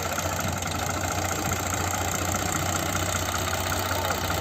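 Heavy machinery's diesel engine idling steadily.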